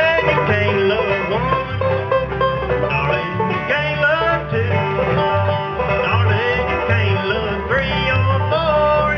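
Bluegrass band playing: banjo picking over guitar, with a steady low bass line.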